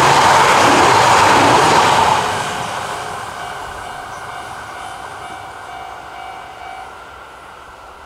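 E6 series Komachi shinkansen passing close at speed: loud rushing wheel and rail noise until the last car goes by about two seconds in, then fading steadily as the train runs away into the distance.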